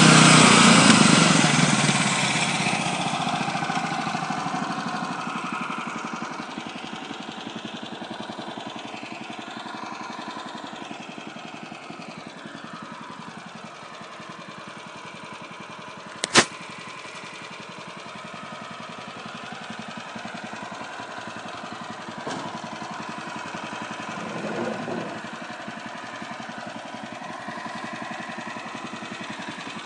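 Portable bandsaw sawmill's gas engine running, loud at first and dropping over several seconds to a steady, lower running sound. A single sharp click cuts in about halfway through.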